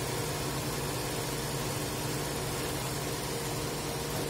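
Steady mechanical hum with an even hiss, as of a small motor running.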